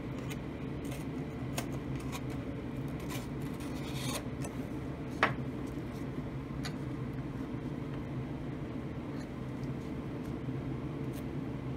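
Steady hum of a homemade laminar flow hood's fan, with light crinkles and clicks of parafilm being pulled from its box and stretched around a plastic petri dish. One sharp click about five seconds in.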